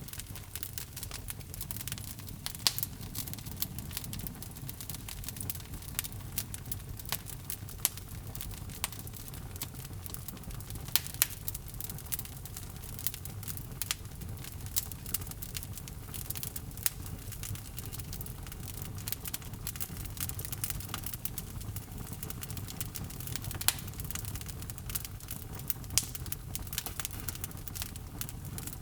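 Wood fire burning in a fireplace: a steady low rumble of flame with irregular sharp crackles and pops from the burning logs.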